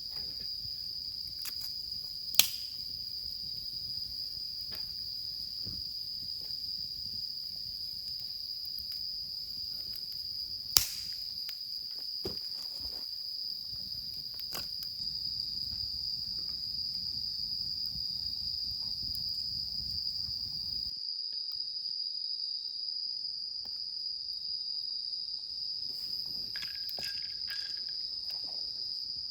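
Insects trilling steadily in one high, unbroken tone, with two sharp clicks about two and a half and eleven seconds in.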